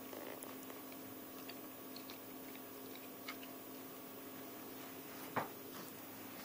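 A dog chewing on a plastic toy: faint scattered clicks and crunches, with one sharper click about five seconds in.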